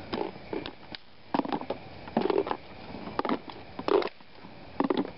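Bulky homemade resin armour costume scuffing and knocking in short, irregular bursts as its wearer walks.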